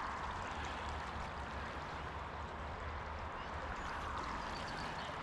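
Small creek's water flowing and trickling steadily.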